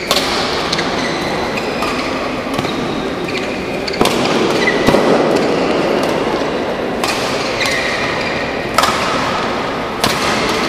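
Badminton rally: sharp racket hits on the shuttlecock, roughly one a second, with short high squeaks of court shoes between them. Steady crowd noise in a large, echoing hall runs underneath.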